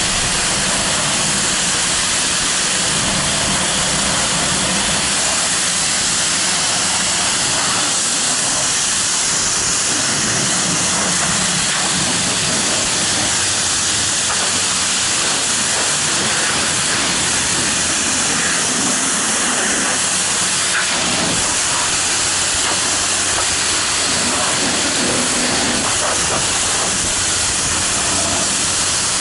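Car-wash high-pressure water jet spraying onto a car: a loud, steady hiss that never breaks.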